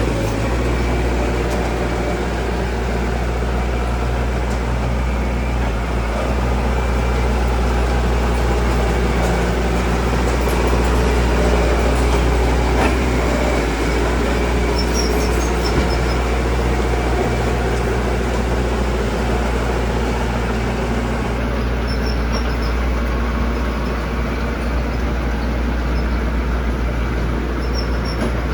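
Diesel engine of heavy earthmoving machinery running steadily, with a constant low drone.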